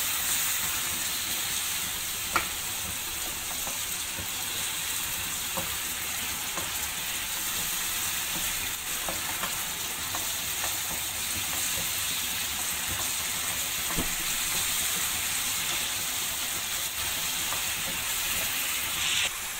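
Diced chicken with spices and tomato sizzling in hot oil in a pan while being stirred, a steady frying hiss with an occasional click of the spatula against the pan.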